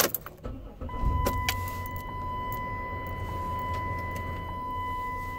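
Dodge Caravan V6 started with the key: a click, a short burst of starter cranking, then the engine catches about a second in and settles into a steady idle. Over the idle, the seatbelt reminder chime sounds as a steady high electronic tone with a faint pulse about once a second.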